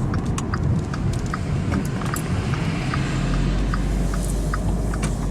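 Car running, heard from inside the cabin: a steady low rumble with light, irregular ticks over it.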